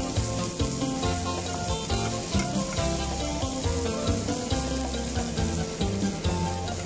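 Bean sprout and bacon patties sizzling as they fry in oil in a nonstick pan, with a spatula scraping the pan as one is turned over. Upbeat background music with a repeating bass line plays throughout.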